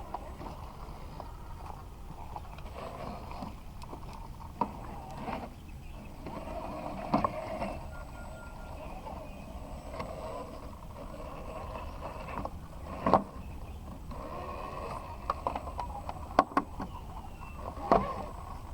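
Element Trailwalker RC crawler driving over rough ground, its small electric motor and geartrain whirring, with several sharp knocks as the weighted wheels and chassis strike the terrain.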